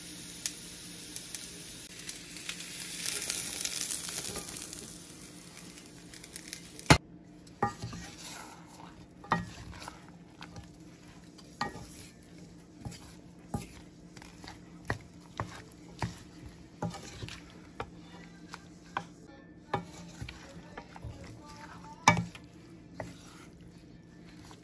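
Food sizzling in a cast iron skillet, then a wooden spatula stirring the casserole mix, knocking and scraping against the pan about once a second. The sizzle is strongest in the first few seconds and drops away after a sharp knock about seven seconds in.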